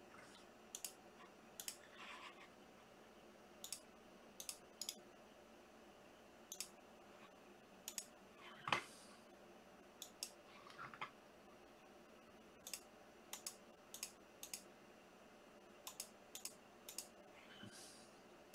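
Sparse, irregular clicks, often in quick pairs, from working a computer mouse and keyboard in near silence.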